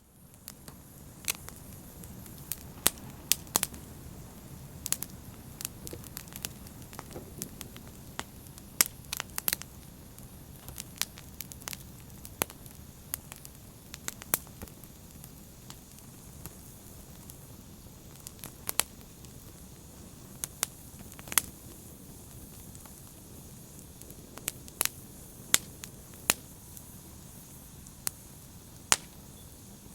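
Open fire burning: sharp, irregular crackles and pops, several a second at times, over a steady low rumble of the flames.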